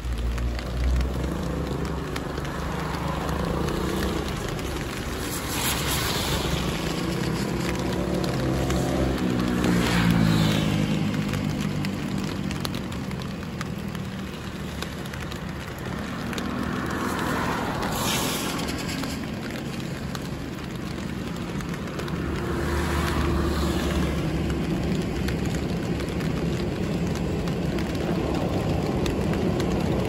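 Road traffic passing a street-side bus stop: vehicles go by one after another, their noise swelling and fading about four times, one with an engine note that falls in pitch as it passes about ten seconds in, over a steady low rumble.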